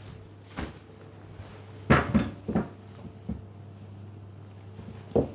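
A few short knocks and thumps from handling a silicone mold of frozen globe desserts as it is brought over and set down on the worktop, the loudest about two seconds in and another near the end.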